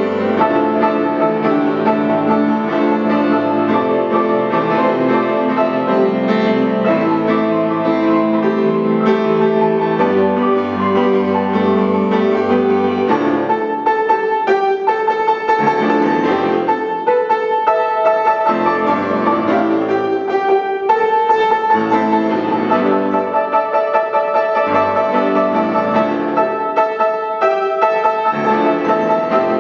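Piano music: a song played on piano as a soundtrack, held notes and chords.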